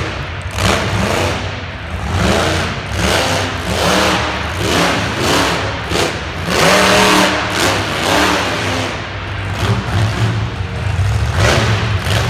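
Monster truck engine revving hard over and over, its pitch rising and falling about once a second above a deep steady rumble, with the longest, loudest rev about halfway through.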